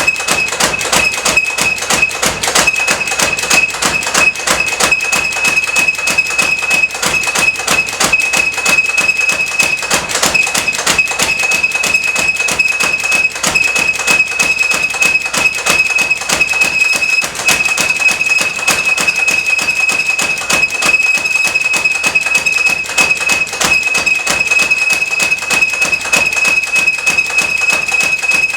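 Power hammer pounding hot steel in fast, continuous blows, with a steady high ring running underneath.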